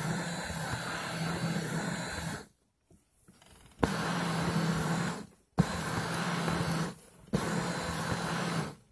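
Electric foot massager running, heard from inside the machine among its kneading nodes: a steady motor hum and mechanical whir. It cuts out abruptly several times, the longest pause lasting over a second about two and a half seconds in, as the rollers stop and restart.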